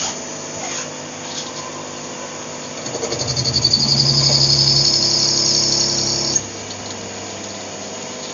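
CNC lathe running, with a cut from about three seconds in: a high-pitched, pulsing whine over the steady machine hum that stops suddenly just past six seconds, typical of the turning tool insert cutting the workpiece.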